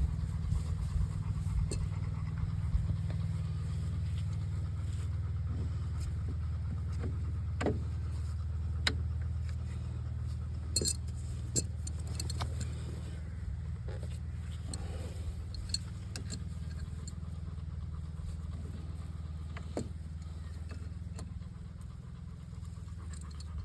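An engine idling steadily, with scattered light metallic clicks and taps from hand work on the tractor's steering ram fittings.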